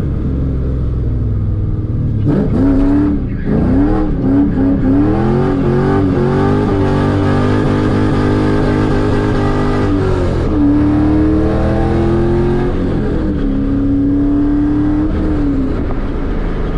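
Car engine heard from inside the cabin, accelerating hard. The engine pitch climbs, drops sharply about three and a half seconds in, then climbs again and holds. It steps down twice more and falls away near the end.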